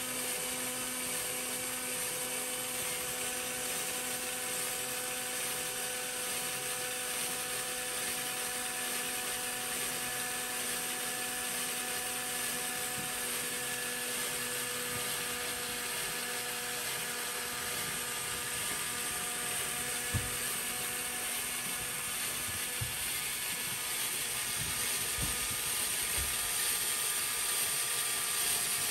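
Motor-driven Lego model steam engine running: a steady electric-motor whine with plastic gearing and linkage whirring, and a few short knocks in the later part. The builder says its long crankshaft buckles and does not run smoothly.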